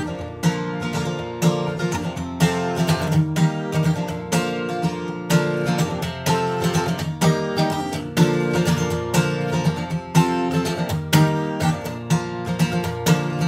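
Steel-string acoustic guitar strummed by hand in a steady rhythm, chords ringing between strokes: the instrumental intro of a slow song, before the vocals come in.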